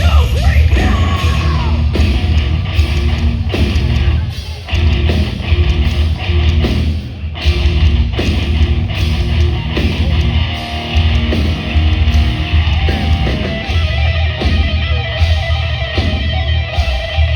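Live heavy rock band playing loudly: distorted electric guitars over heavy bass and drums.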